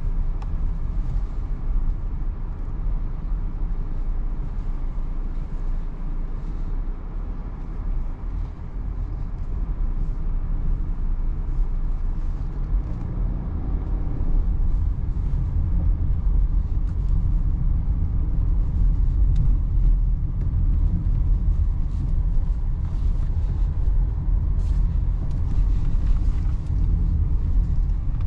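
Hyundai Tucson driving slowly on a rough dirt road, heard from inside the cabin: a steady low rumble of the tyres and running gear on the unpaved surface, mixed with engine hum. It grows louder about halfway through as the car picks up speed.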